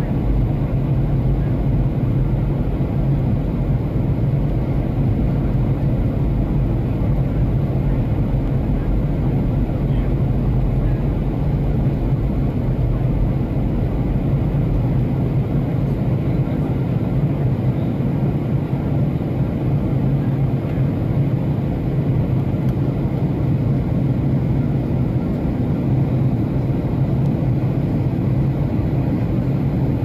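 Airplane cabin noise in flight: the engines and airflow make a loud, steady, deep rumble and rush, heard from inside the cabin.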